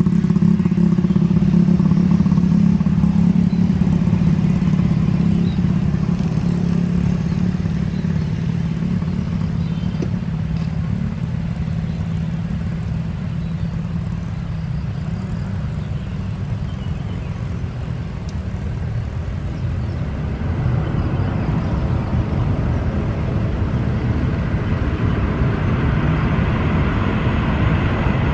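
A nearby road vehicle engine idling with a steady low hum. Past the two-thirds mark, a growing rush of airliner jet engine noise joins it as the aircraft comes along the runway.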